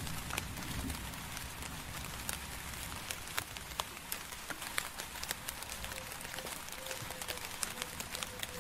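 Steady rain, a constant hiss with many separate drops ticking sharply on a hard surface. A low rumble of distant thunder dies away in the first second.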